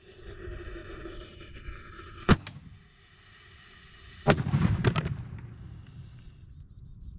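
A consumer firework canister shell exploding inside an HDPE mortar tube in a small wooden mortar rack. A steady hiss, a sharp bang about two seconds in, then a bigger blast about two seconds later with a short crackling tail as the tube fails and blows the rack apart.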